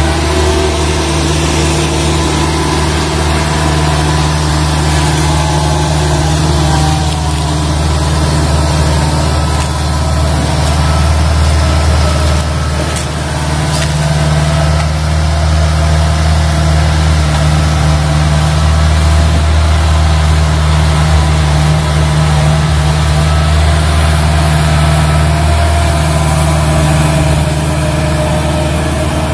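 Kubota DC-70 Plus combine harvester's diesel engine running steadily as the machine drives along on its tracks.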